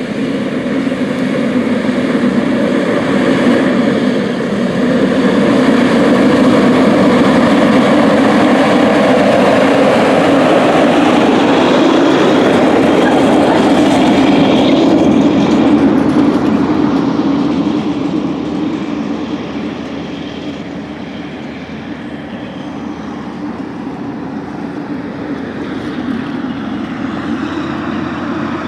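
Heavy diesel harvest machine running and passing close by: loud and steady, swelling through the middle and fading in the last third.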